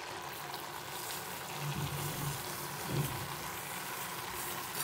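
Grated carrots boiling in milk in a kadhai for gajar ka halwa, bubbling and sizzling with a steady hiss; sugar is poured in near the end.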